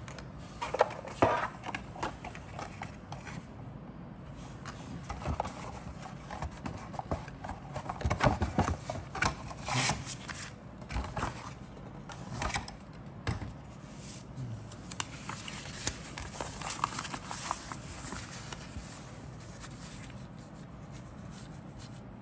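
Hands handling a cardboard model kit box and unfolding its paper instruction sheet: irregular taps, scrapes and paper rustling, with a few sharper knocks about a second in and again around eight to ten seconds in.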